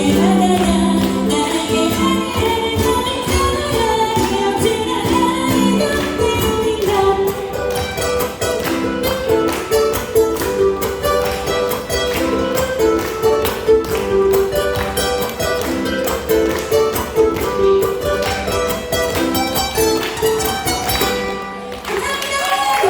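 Ukulele ensemble strumming a quick rhythmic tune with a melody line over it. The music dips briefly near the end.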